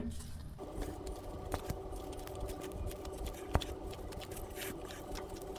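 Oil filter wrench and spin-on oil filter giving a few faint clicks and scrapes as the filter is unscrewed, the loudest click about three and a half seconds in. A steady hum sets in about half a second in and stops near the end.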